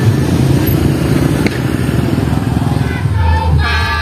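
A motor vehicle engine running with a rough, steady rumble, with music coming in near the end.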